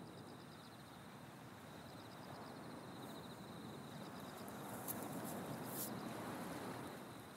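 Night ambience of crickets chirping in a steady high trill over a soft wash of noise that swells toward the end. Two brief sharp clicks come about five and six seconds in.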